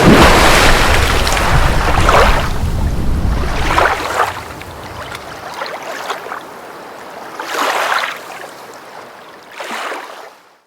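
Water and wind noise with a swishing surge every couple of seconds; a deep rumble under it fades out about halfway.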